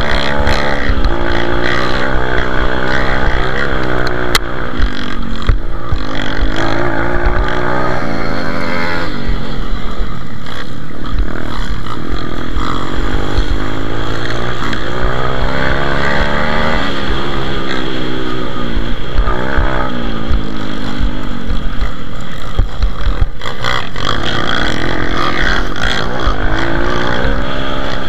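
Pit bike engine racing hard at close range, its pitch climbing and falling back over and over as it runs up through the gears and backs off.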